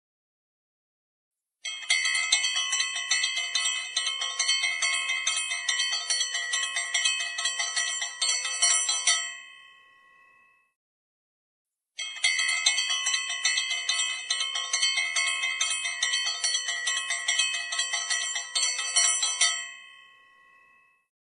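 A small hand bell, such as a puja bell, rung rapidly and continuously in two runs of about eight seconds each. Each run ends with the ring fading out, and a short pause separates them.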